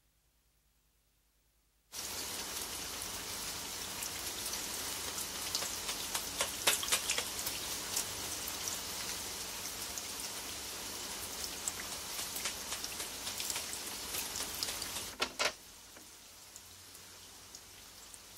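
Rain falling steadily, with a few sharper drop splashes. It starts abruptly out of silence about two seconds in and turns much quieter about three seconds before the end.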